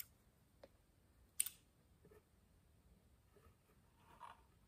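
Faint clicks and snips of small scissors cutting the slanted end off a rubber fuel line. One sharp click about a second and a half in is the loudest.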